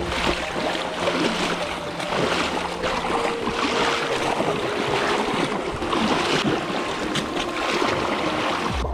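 Several people wading through a shallow, muddy bog stream: the dark water splashes and sloshes around their legs with each irregular step.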